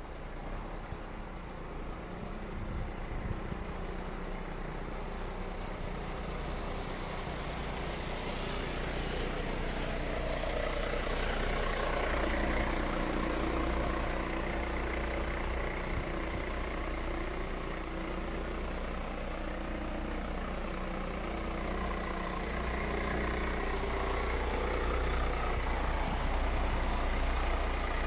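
MAN TGA truck's inline-six diesel engine idling steadily, gradually growing louder.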